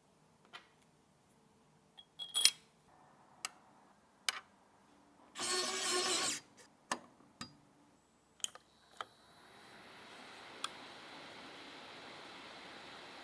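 Sharp clicks and knocks of computer parts being handled and fitted, with a short rubbing rush about five seconds in. About two-thirds of the way through, the computer's fans spin up and settle into a steady whir as the newly built PC powers on.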